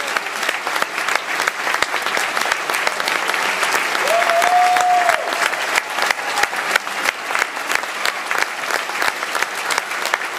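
A theatre audience applauding steadily through curtain-call bows. About four seconds in, one long call is held over the clapping for about a second.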